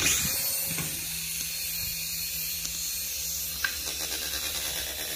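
Toy RC mini helicopter's small electric motors and twin rotors running steadily: a whirring hiss over a low hum.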